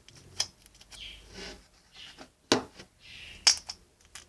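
Homemade slime with capsules mixed in, squeezed and pressed by hand: several sharp pops and clicks with soft squelching between them.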